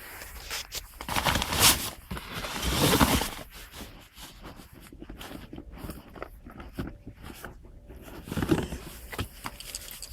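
Aerosol cleaner spray hissing in a few short bursts onto a greasy brake disc to strip the grease off, with scraping and handling noises between.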